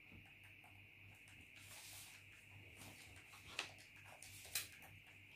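Quiet paper handling on a tabletop: a soft brushing sound about two seconds in, then two light taps a second apart, over a faint steady hum.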